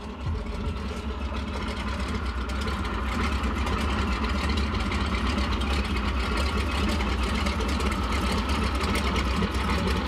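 A boat's engine idling steadily, fading in over the first couple of seconds.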